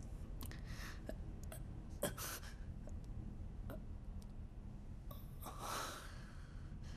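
A man's sharp breaths and gasps, three of them, the longest near the end, with a few small clicks and knocks of handling, the sharpest about two seconds in, over a low steady hum.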